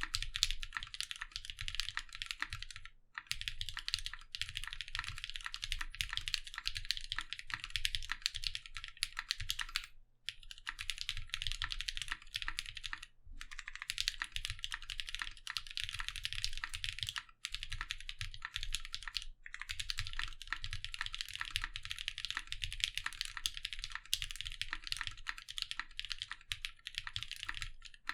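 Steady fast typing on a gasket-mounted Mekanisk Klippe S mechanical keyboard with lubed 62g NovelKeys Cream linear switches, a polycarbonate plate, CRP Tulip keycaps and foam in the case. The keystrokes come as a dense run of clicks, broken by a few short pauses.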